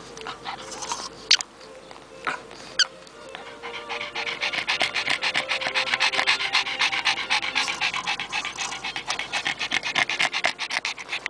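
Pekingese dog panting fast and hard after a walk, starting about three seconds in. Before it, two sharp clicks.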